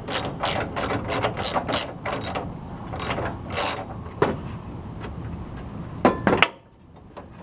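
Socket ratchet wrench clicking as a hood latch bolt is turned out: quick strokes about three a second for the first two seconds, then slower, with a last few loud clicks about six seconds in.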